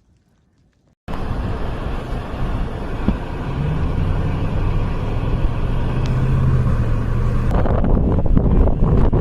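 A vehicle's engine running with a steady low hum under a noisy rumble. It starts abruptly about a second in, after near silence.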